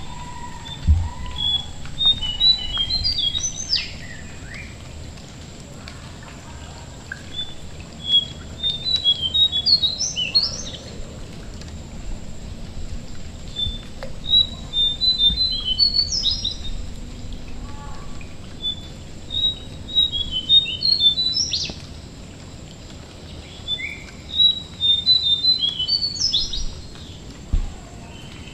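A jongkangan singing five repeated phrases, one about every five seconds. Each phrase is a quick run of high chirping notes that ends in a sharp upward flick. Under it is a steady hiss of rain dripping in the mangroves.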